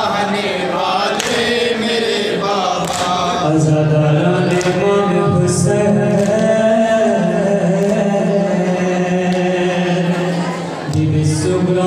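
Men chanting a noha together into microphones, a chorus of voices in unison holding long drawn-out notes, with a short break near the end.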